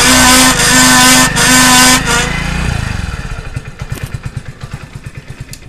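Hero Splendor BS6 rear drum brake making a loud grinding squeal, with a pitched tone pulsing on and off about twice a second, as the rear wheel turns with the engine running. About two seconds in the noise stops and the sound fades away in slowing, regular pulses. The noise comes from brake lining material stuck in the drum and a hardened brake shoe.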